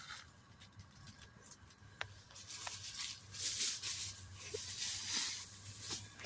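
Intermittent rustling and crinkling with a few light clicks, getting busier about two seconds in.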